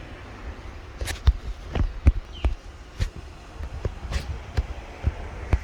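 Wind rumbling on the microphone, with irregular sharp knocks and clicks, about a dozen spread unevenly through the few seconds.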